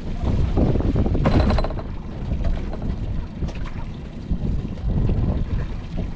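Wind buffeting the microphone on an open boat at sea, over a low rumble of water, with a couple of short knocks about a second in and again a few seconds later.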